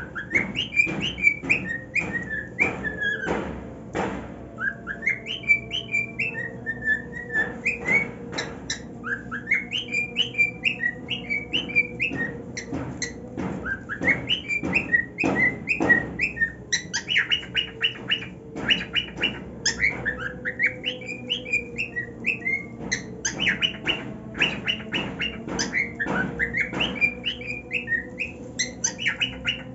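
Male cockatiel singing: repeated phrases of quick chirping, warbling notes, with frequent sharp clicks and taps in between.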